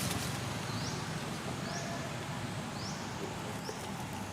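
An animal's short, high, upward-sliding chirp, repeated about once a second over a steady low background hum.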